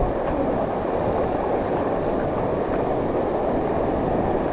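Steady rush of water from a pool's artificial rock waterfall pouring into the pool, with water lapping close by.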